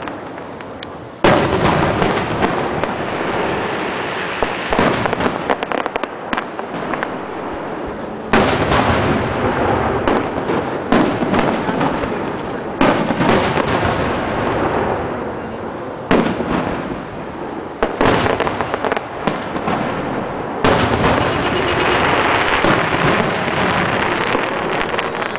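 Aerial fireworks shells bursting one after another, each sudden bang trailing off in a long echoing rumble. Near the end the bursts run together into a dense crackle.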